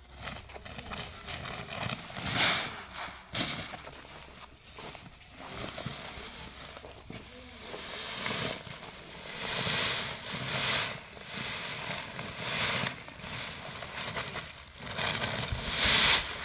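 Harvested paddy (unhusked rice) pouring out of woven plastic sacks onto a plastic tarpaulin, a hissing rush of grain with the sacks rustling, coming in several surges, the loudest near the end.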